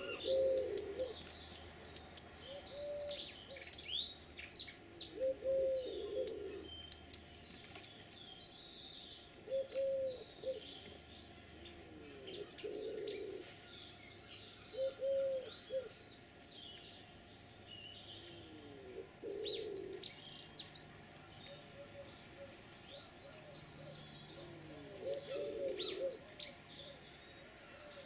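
Garden birdsong: small songbirds chirping and warbling in high quick phrases, with sharp ticks in the first few seconds. Under them a pigeon coos in low phrases that come back every few seconds.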